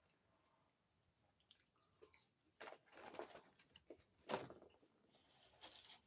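Faint chewing and mouth sounds of a man eating a cheeseburger and fries, with a few short, soft smacks. The loudest comes about four seconds in.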